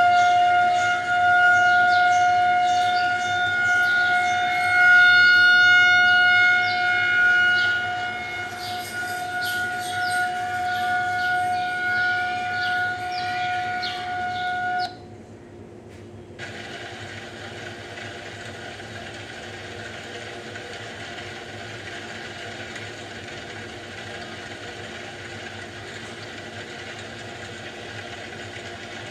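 A siren winds up and holds a steady wail with faint rapid clicks over it, then cuts off abruptly about fifteen seconds in. After a brief gap, a steady low hum with a hiss runs on.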